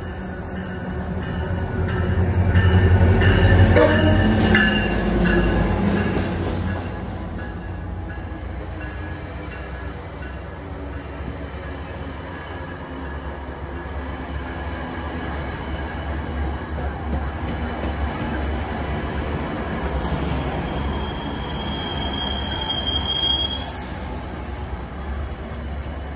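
Virginia Railway Express commuter train of bilevel gallery cars arriving along the platform, loudest a few seconds in as it runs past, then a steady rolling rumble as it slows. Near the end a high brake squeal rings out for about a second and a half as it comes to a stop.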